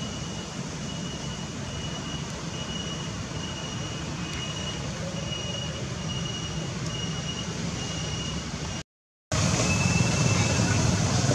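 Steady background rumble of distant road traffic, with a high chirp repeating evenly about one and a half times a second. The sound cuts out for half a second about nine seconds in, and the rumble is louder after it.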